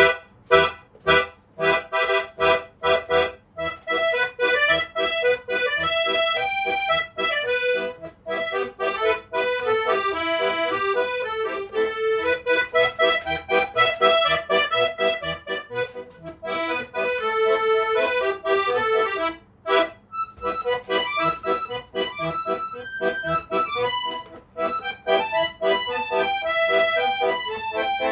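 Solo accordion playing a fast piece: sharp, separated staccato chords at the start, then rapid running melody lines over chords, broken by a few short pauses.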